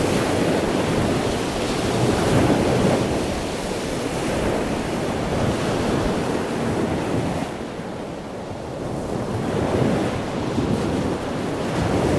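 Ocean waves breaking and washing on the shore, a steady surf that swells and ebbs every few seconds, with wind rumbling on the microphone.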